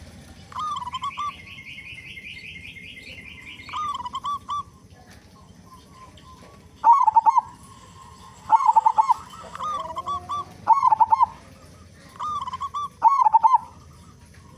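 Local zebra dove (perkutut) cooing in short rolling phrases, about eight in a row, some louder than others. A separate rapid, higher chirping trill from another small bird runs through the first few seconds.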